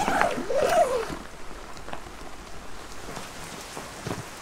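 Nylon tent rain-fly zipper pulled open in one quick stroke, its rasp wavering in pitch, in about the first second. Rain patters steadily on the tent fabric afterwards.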